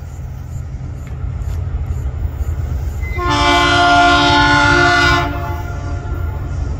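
Diesel freight locomotive sounding its multi-tone air horn once, a steady chord held for about two seconds, starting about three seconds in, over a steady low rumble.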